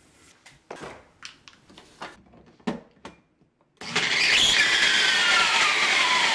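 A few soft taps and clicks from the blender cup being handled, then about four seconds in a Magic Bullet blender motor starts and runs loud, with a whine that falls in pitch. It is not supposed to sound like that: the 3D-printed ABS replacement drive part is rubbing against the base and melting.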